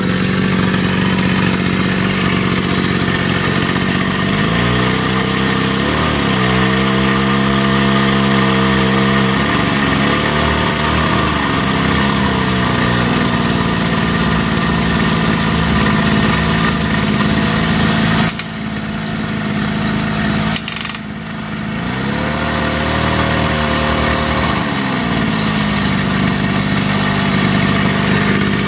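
Hydraulic drive of a homemade 1/8-scale Cat 390F RC excavator running with a steady whine. Its pitch slides up and back down twice as the boom and bucket work, and its level dips briefly past the middle.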